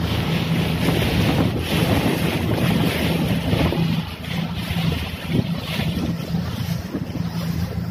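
Outboard motor of a rescue boat running steadily, a low even hum, with wind buffeting the microphone and water rushing past the hull.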